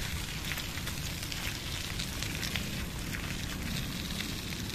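Loose gravel crunching and crackling under a child's bicycle tyres and walking feet, with a steady low rumble underneath.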